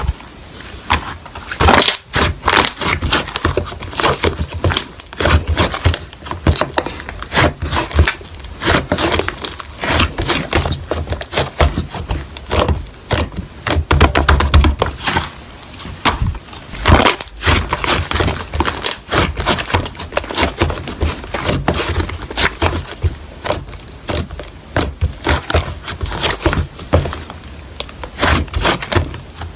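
Slime being squeezed and worked by hand, a continuous run of dense, irregular clicks and pops.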